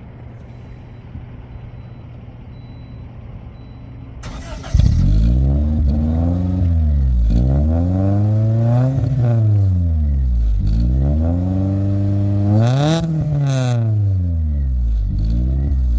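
1993 Honda Civic's D15B7 1.5-litre four-cylinder, with an exhaust turbo whistle fitted, idling steadily, then revved hard about six times from a little under five seconds in, the pitch climbing and falling with each blip. It gives no turbo-like whistle, just typical ricer Honda sounds.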